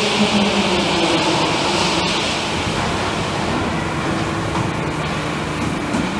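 Leather trimming and transfer conveyors running: a steady mechanical rumble and hum. A high hiss over it fades out about two and a half seconds in.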